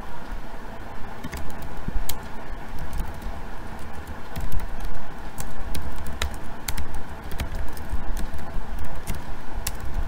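Typing on a computer keyboard: irregular key clicks, a few at a time, over a steady low background rumble.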